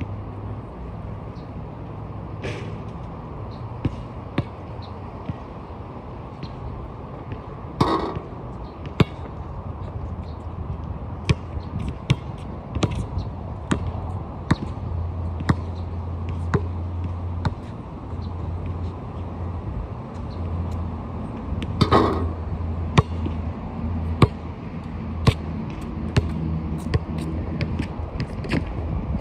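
Basketball bouncing on an outdoor court, dribbled in runs of single bounces, with two louder ringing impacts about eight seconds in and again near twenty-two seconds. A steady low hum runs underneath.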